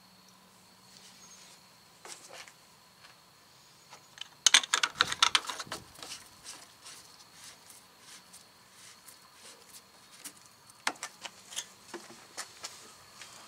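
Rapid plastic clicking and rattling from the coolant expansion tank cap being screwed on and the antifreeze jug being handled. The densest, loudest run of clicks comes about four to six seconds in, with scattered clicks before and after.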